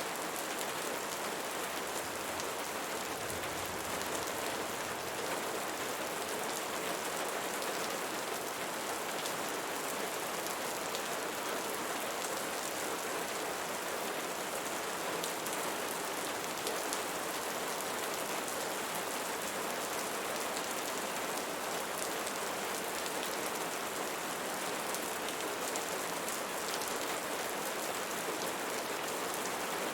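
Steady rain falling on a surface, an even hiss with fine patter of individual drops.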